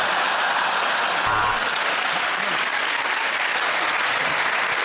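Studio audience applauding steadily after a punchline.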